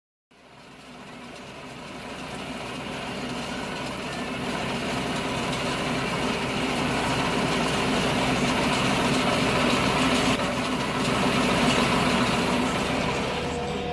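John Deere tractor's diesel engine running steadily, fading in over the first several seconds.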